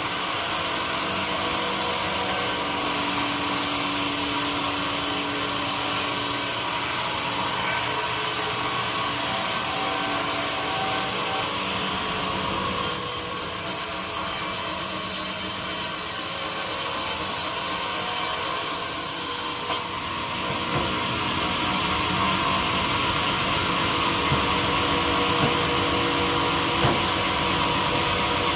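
Power tool working wood, running steadily. The level dips briefly about twelve seconds in, and again at about twenty seconds, after which it runs a little quieter.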